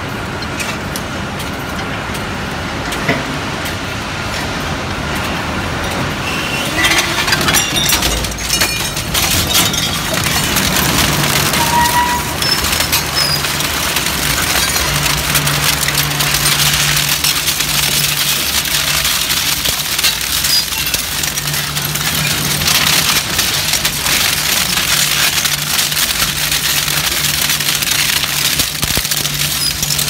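Twin-shaft metal shredder running, its toothed cutter discs crunching and tearing scrap aluminum with a constant crackle of small cracks, over a steady low machine hum that grows stronger about halfway through.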